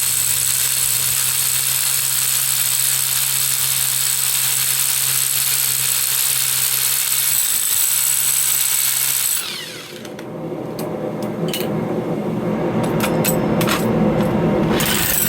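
Hammer drill boring into stone, running steadily with a constant motor hum. About nine seconds in the sound dips briefly and turns lower and rougher, with scattered sharp clicks.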